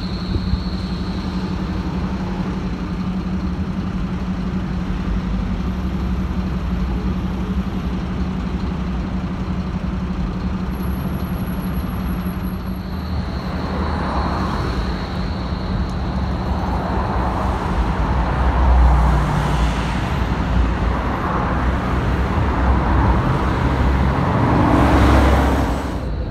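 Road traffic: cars and other vehicles passing on a busy city road, with several swells of engine and tyre noise in the second half. Under it runs a steady electric hum from a tram pulling away from the stop.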